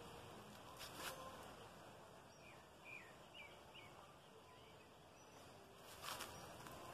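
Near silence: faint outdoor ambience with a few faint, high bird chirps in the middle, and two brief faint noises, about a second in and near the end.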